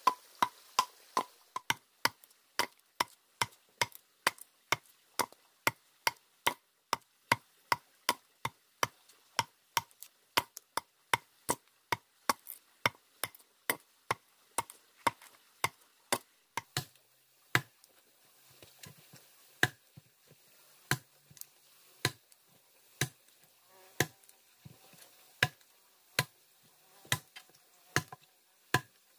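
Steel adze blade chopping into a wooden log, hollowing it out. Sharp, regular strikes, about two to three a second at first, slowing to about one a second after the middle.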